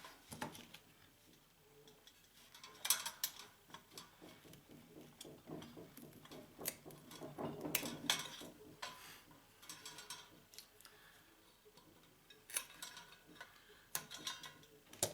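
Scattered light metallic clinks and clicks of hand tools and small metal parts being picked up and set down, with a few sharper knocks spread through it.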